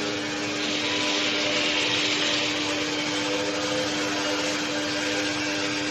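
A 500 kW industrial heating furnace and its equipment running, giving a steady hum with one constant low tone under an even rushing noise. The hiss swells briefly about a second in.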